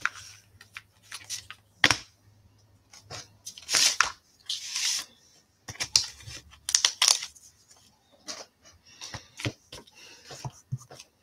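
Irregular rustling, peeling and crinkling of clear stamps and their plastic packaging, with sharp clicks and taps as an acrylic stamp block is handled on a craft desk.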